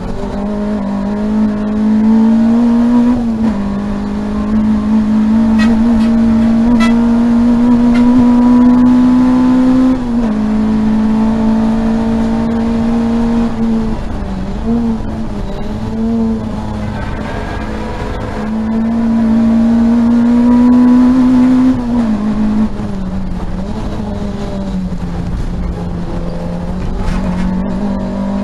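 Peugeot 205 GTi race car's four-cylinder engine under hard acceleration, heard from inside the stripped cabin. Its note climbs steadily, then drops sharply at gear changes about three, ten and twenty-two seconds in. It dips and wavers briefly around the middle and sinks for a few seconds after the last change, then climbs again near the end.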